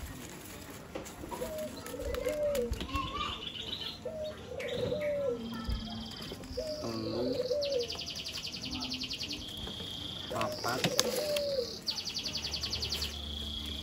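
Birds calling: a dove's short coos repeated every second or so, with a few higher chirps. Twice, a long rapid high-pitched pulsing trill, the second starting about twelve seconds in.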